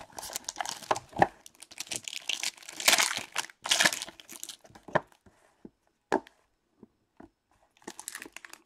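Clear plastic wrapping crinkling and tearing as a trading-card pack is unwrapped by hand: a dense stretch of crinkling over the first four seconds, then scattered small crackles and taps, and more crinkling near the end.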